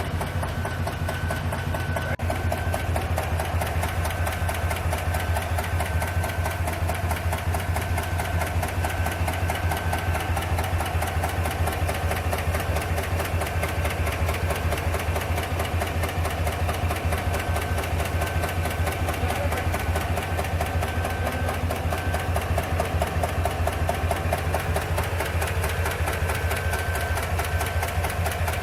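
A 2021 Tahoe/Yukon engine running steadily with a fast, even ticking, the ticking noise that comes with its random-misfire code (P0300) and lit engine light.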